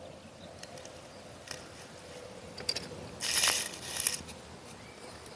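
Fishing tackle handled at close range while a Palomar knot is tied: scattered light clicks, with a short rustle about three seconds in followed by a few sharper clicks.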